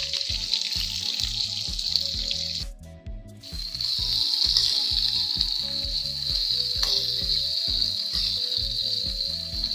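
Sliced onion sizzling in hot oil over a tempering of mustard seeds, urad dal and cumin, a steady frying hiss that breaks off briefly about three seconds in and then comes back louder. Background music with a steady beat plays underneath.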